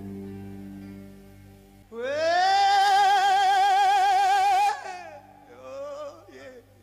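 Live rock singing: a steady held chord, then about two seconds in a male singer belts one long high note with wide vibrato, held for nearly three seconds before it breaks off into softer sung phrases.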